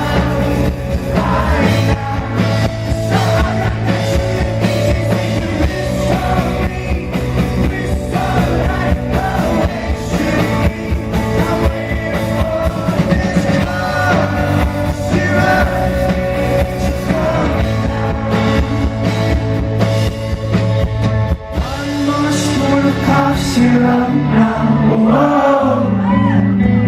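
Rock band playing live with a male lead singer: drums, sustained bass and singing, with a brief dip in loudness about three-quarters of the way through.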